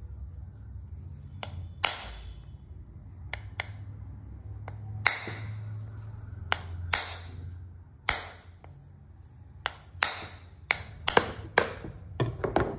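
A knife striking the shell of a sprouted coconut to crack it open: about a dozen sharp knocks at irregular intervals, each with a short ring, coming faster near the end as the shell cracks around its middle.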